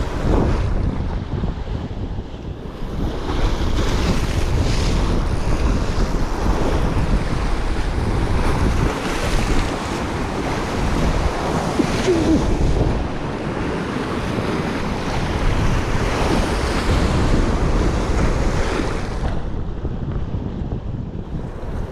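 Strong wind buffeting the microphone over the wash of sea waves, a steady rumbling rush that swells and eases.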